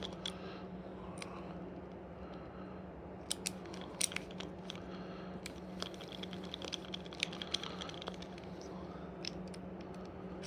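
Scattered light clicks and taps of small parts and hand tools being handled on a workbench, over a steady low hum.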